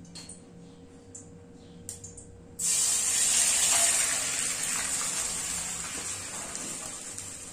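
Cooked beans and their broth poured into a frying pan of hot lard, sizzling loudly as the liquid hits the fat. The sizzle starts suddenly about two and a half seconds in and slowly dies down.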